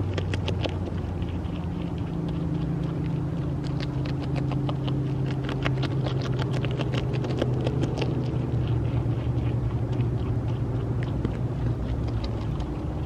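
Beaver chewing leaves held in its front paws: quick, irregular crunching clicks. Under it runs a steady low hum.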